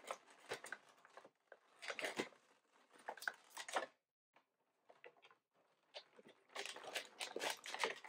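Clear plastic packaging crinkling and crackling as it is handled. It comes in bursts, goes nearly quiet in the middle and picks up again near the end.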